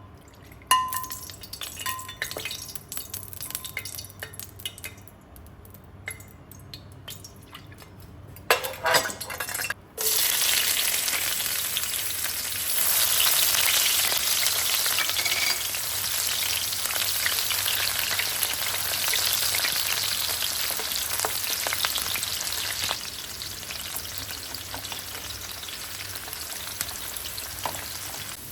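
Scattered clinks of utensils, then about ten seconds in, food hits hot oil and starts sizzling loudly in a pan. The sizzling keeps up, easing slightly in the last few seconds.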